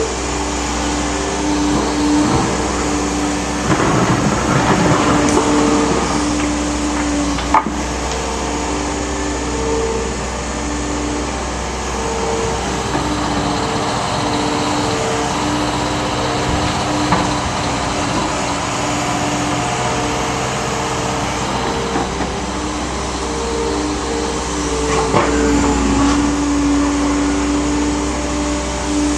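Liebherr R930 G8 crawler excavator working: a steady engine rumble with a whine that comes and goes as the machine moves, and a few knocks, the sharpest about seven and a half seconds in.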